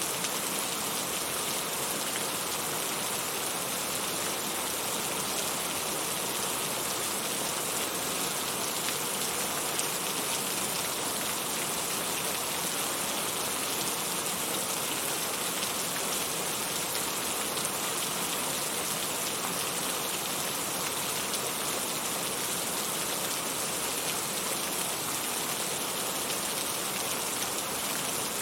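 Steady heavy rain falling, an even dense hiss of drops with no thunder.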